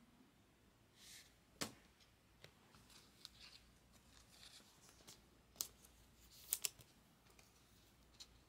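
Trading cards being handled and slid into plastic sleeves: faint rustling and sliding, with a few sharp clicks of card and plastic, one about one and a half seconds in and a cluster about six and a half seconds in.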